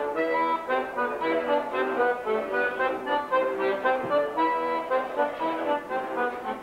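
Accordion (bayan) playing a lively, fast tune with quick runs of notes over chords.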